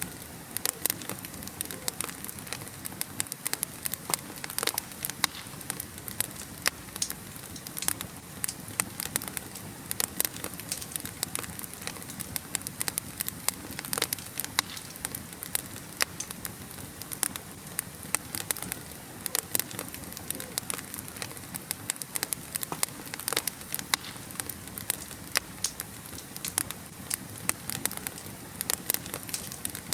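Wood fire burning in a fireplace, crackling and popping with frequent irregular sharp snaps over a steady low hiss.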